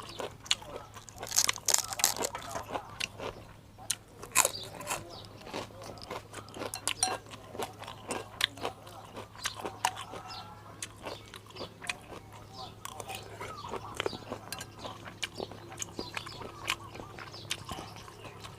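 A person eating close to the microphone: crunchy bites and chewing, a steady run of small crisp crackles and clicks.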